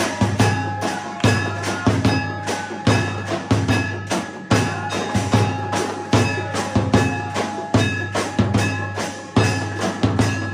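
Temple aarti percussion: drums beaten in a fast, steady rhythm of several strikes a second, with a bell ringing on over them.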